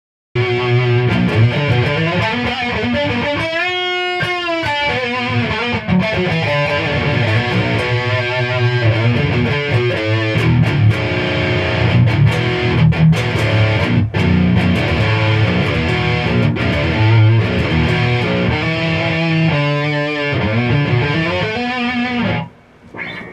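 Gibson Les Paul Studio electric guitar with freshly installed pickups played through an amplifier: a run of notes and chords, with bent notes about four seconds in. The playing stops shortly before the end.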